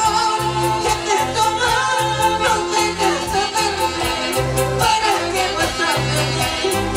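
Live Latin dance band playing, with a woman singing the lead over keyboard, deep bass notes and a steady, rapid cymbal beat.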